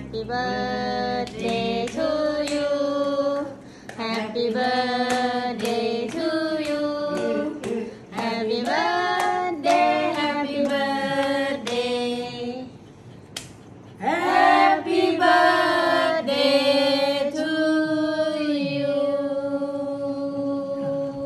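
A small group of people singing a birthday song together in four sung lines, clapping their hands along in time through the first part.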